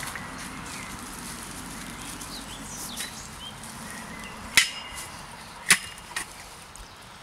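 Steel Z-profile fence post knocking twice, about a second apart, with a short metallic ring as it is handled and stood into an augered hole. Birds chirp faintly in the background.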